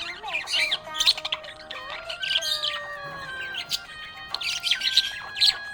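Budgerigar chirping in quick, busy clusters of high notes, over background music with long held tones.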